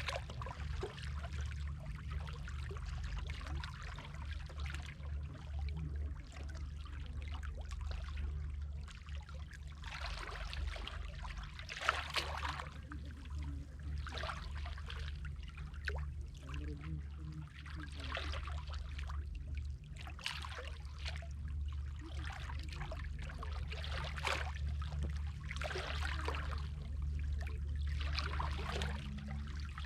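Sea water lapping and splashing in irregular surges every few seconds, over a steady low rumble.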